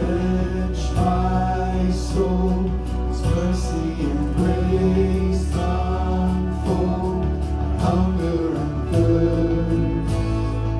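Live worship band music: strummed guitar over held bass notes, the chord changing about four and a half and nine seconds in.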